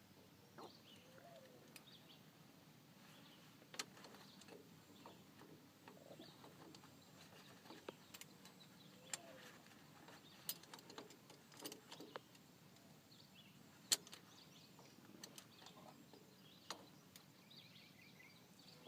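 Near silence with scattered faint sharp clicks and light taps, the loudest about two-thirds of the way in.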